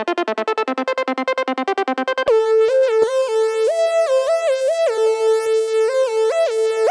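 Synthesizer music: a rapid staccato pattern of notes, about eight a second. About two seconds in it switches to a sustained synth lead line stepping between a few notes.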